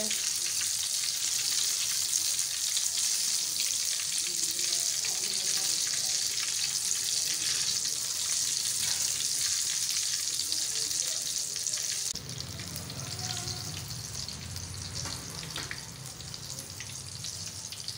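Gram-flour-battered green chili pakoras deep-frying in hot oil: a steady sizzle and bubbling. About twelve seconds in the sizzle drops quieter, and a low hum comes in under scattered crackles.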